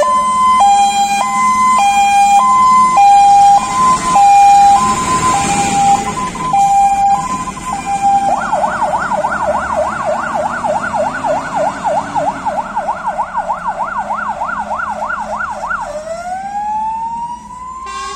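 Fire engine's electronic siren. It sounds a high-low two-tone, switching pitch about every half second. About 8 s in it changes to a fast yelp sweeping up and down several times a second, and near the end to a slow rising wail.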